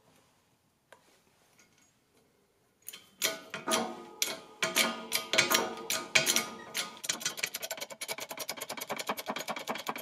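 A press working a ball bearing down onto the mill spindle through a PVC coupler. Quiet at first with a single click, then irregular knocks and clatter from about three seconds in, settling into a fast, even clicking about seven seconds in.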